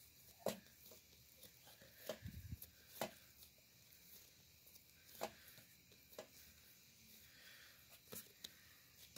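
Near silence with faint, scattered soft taps and squishes of hands rounding a ball of pizza dough on a floured tray.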